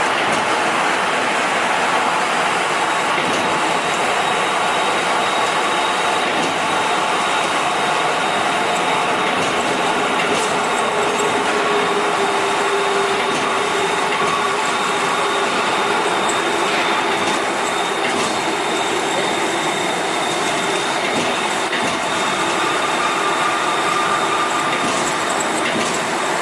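Metal-polishing machinery running steadily on generator parts: a continuous rushing noise with faint, steady high whines.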